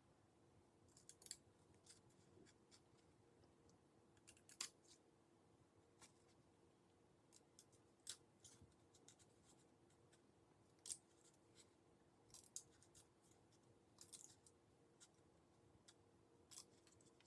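Scissors cutting paper: faint, short snips at irregular intervals, a second or more apart, over a faint steady hum.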